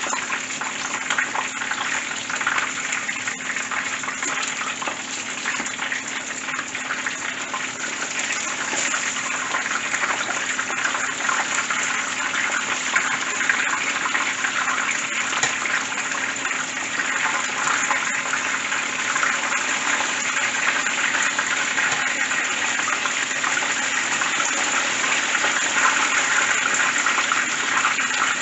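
Battered whole porgy shallow-frying in a pan of hot oil: a steady, dense sizzle and crackle that grows slightly louder over the stretch.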